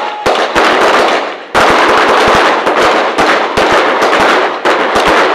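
Rapid small-arms fire of blank rounds: many sharp shots coming fast and overlapping, with a brief lull about a second and a half in.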